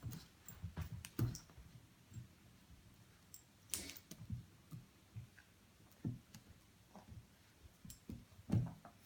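Boston Terrier puppy and cat wrestling: irregular soft thumps and clicks of paws and bodies bumping, with a longer scratchy scuffle a little under four seconds in and a stronger thump near the end.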